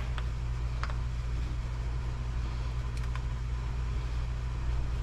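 A steady low hum, with three faint clicks: two within the first second and one about three seconds in.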